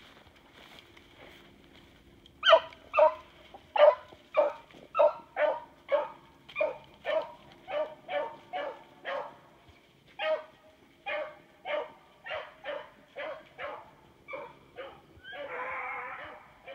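Rabbit-hunting hound barking a steady run of short, sharp barks, about two a second, starting a couple of seconds in. This is the barking typical of a hound working a rabbit's trail.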